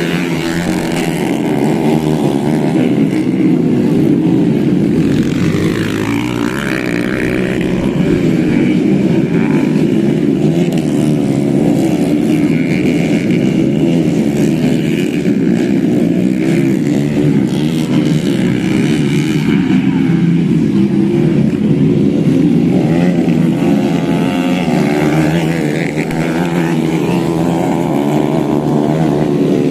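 Modified underbone grasstrack motorcycle engines running and revving, their pitch rising and falling continuously, with a brief dip about six seconds in.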